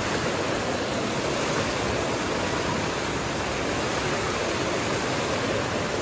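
Shopping-centre water fountain: many jets splashing down into the basin and water spilling over its stone rim into the pool below, a steady rush of water.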